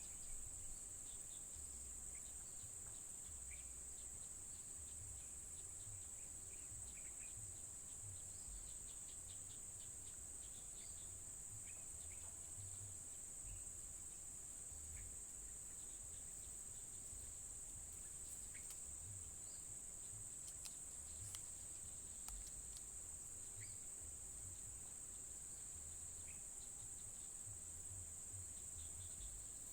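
Steady, high-pitched chorus of insects, unbroken throughout, over a faint low rumble, with a few small scattered chirps or clicks.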